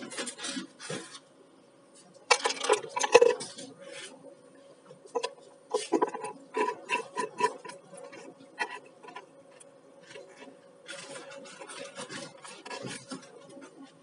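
Plastic float level indicators and cell caps being handled and fitted into a lead-acid battery's cell openings: irregular clicks, taps and scraping that come in bunches.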